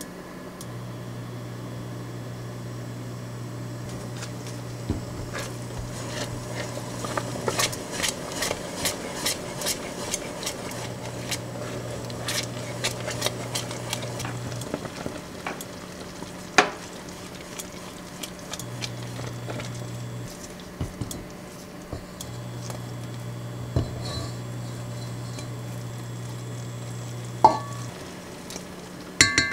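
Silicone spatula stirring simmering blueberry jam in a stainless steel pot, light scrapes and clicks about two a second against the pot over the bubbling fruit. A few sharp knocks of a spoon on the pot come later, and a low cooktop hum switches on and off several times.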